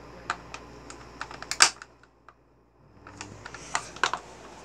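Stiff clear plastic toy packaging clicking and crackling as a figure is worked out of it: scattered sharp clicks, the loudest about one and a half seconds in, then a quiet second before the clicking starts again.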